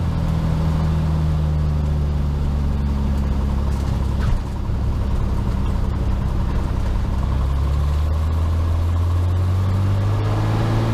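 Cessna 182S's six-cylinder Lycoming IO-540 engine and propeller running loudly and steadily in the cabin during the takeoff roll, with a brief click about four seconds in. The engine note rises slightly near the end.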